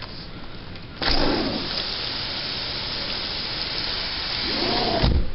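Heavy rain pouring down in a steady hiss that comes in suddenly and loudly about a second in, with a thump near the end.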